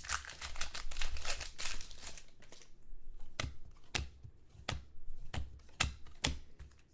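Foil trading-card pack wrapper crinkling and tearing, then a run of sharp clicks, one about every half-second, as the cards are flipped through one by one.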